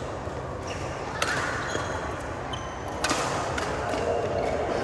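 Badminton rally: two sharp racket hits on the shuttlecock, about a second and a half in and near three seconds, with short high squeaks of shoes on the court floor between them.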